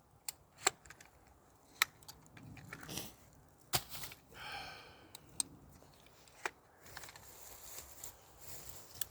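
Sharp, scattered metallic clicks and clacks, about seven in all, from an AR-15 rifle being handled by hand to clear a jam, with rounds wedged tight in the action.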